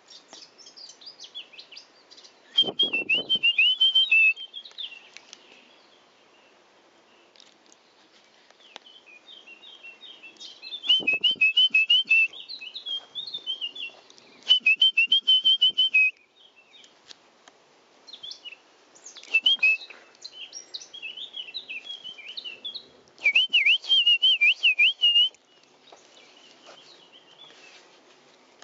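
A songbird singing: loud phrases of rapid warbling trills come every few seconds, with softer chirps between them.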